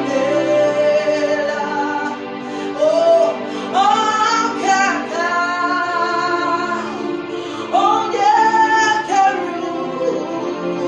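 A woman singing a slow worship song in long held notes that swell and bend, over a steady sustained instrumental backing.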